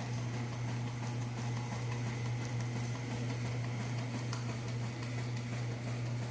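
Washing machines agitating a wash load: a steady low motor hum with a faint churning noise over it.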